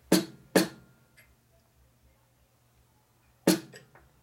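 Three sharp metallic taps, two in quick succession at the start and one about three seconds later, from a hammer nudging the clamped engine case setup upward to correct its tilt; the second tap rings briefly.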